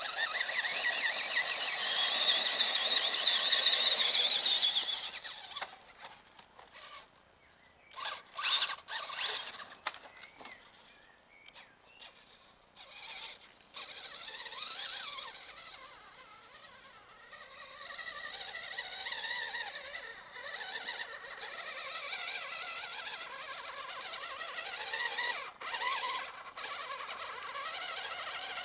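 Traxxas mini Summit RC truck's electric motor and gears whining at a high pitch as it drives over a dirt slope. The whine rises and falls with the throttle: loud for the first few seconds, short spurts about eight to ten seconds in, then quieter and wavering.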